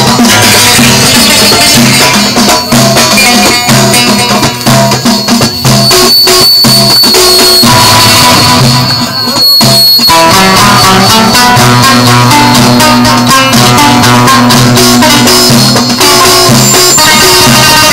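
Live amplified Moroccan folk music: a long-necked lute (lotar) plays plucked notes over frame drums (bendir) beaten in a steady rhythm. The music thins out briefly about nine seconds in, then comes back at full strength.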